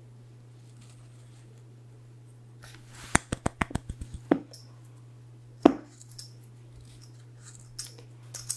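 Whole wheat flour poured onto rolled oats in a glass mixing bowl, with a soft rustle. Then comes a quick run of about eight light knocks as the container is tapped out over the bowl, and one louder knock about halfway through. A few small clicks follow near the end.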